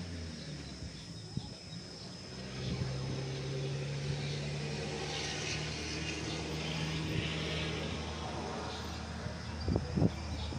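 A distant engine hums steadily. A few short low bumps come near the end.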